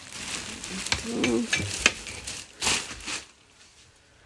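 A plastic garment cover rustling and crinkling as it is handled, with a few sharp clicks about halfway through. The rustling stops about three seconds in.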